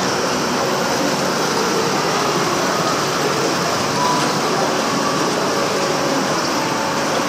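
Steady, loud rushing noise of a giant-wheel fairground ride in motion, heard from a seat on the ride.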